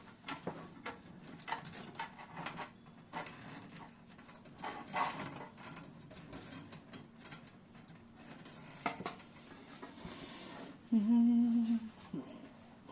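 Irregular clicks, taps and light metallic rattles of computer hardware being handled and fitted into a PC case. Near the end comes a short hummed voice sound.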